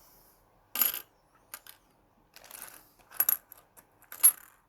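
Australian predecimal bronze pennies clinking together as they are sorted by hand: several sharp, separate metallic clinks, the loudest near the end.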